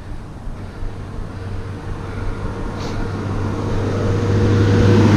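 A truck's engine approaching on the road: a low, steady hum that grows steadily louder through the second half.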